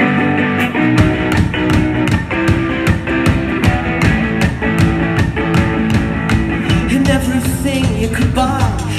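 Live three-piece rock band playing loudly. An electric guitar plays alone, then the bass guitar and drum kit come in together about a second in, and the full band plays on.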